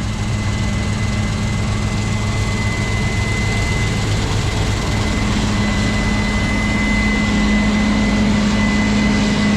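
Heavy diesel farm machinery running steadily, a low engine drone with a thin high whine over it, growing slightly louder.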